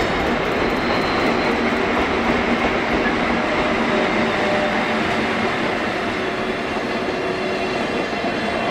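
Freight train of hopper wagons hauled by an EF81 electric locomotive passing close at low speed: steady noise of steel wheels running on the rails.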